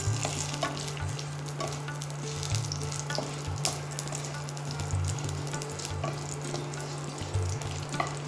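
Panch phoron, bay leaves and dried red chillies sizzling in hot mustard oil in a frying pan, the tempering stage before the vegetables go in, with repeated clicks and scrapes of a wooden spatula against the pan as they are stirred.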